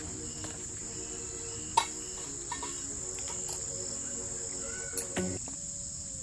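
Crickets chirring in a steady high-pitched chorus, with a few sharp knocks: a loud one about two seconds in and two more near the five-second mark.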